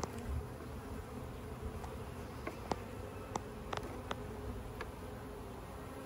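Honey bees buzzing steadily over an opened hive, with a few light clicks as a metal hive tool touches the wooden frames.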